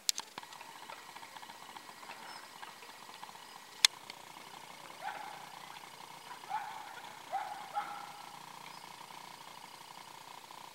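Quiet outdoor background with a faint steady hum and a few short calls rising in pitch around the middle. A sharp click comes right at the start and a louder one about four seconds in.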